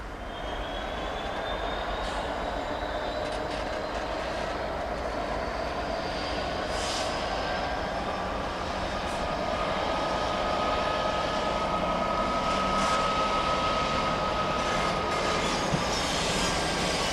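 GBRf Class 66 diesel-electric locomotive, with its two-stroke V12 engine, running slowly as it hauls a freight train, wagon wheels rumbling on the rails. About ten seconds in, a thin high wheel squeal joins and holds for several seconds.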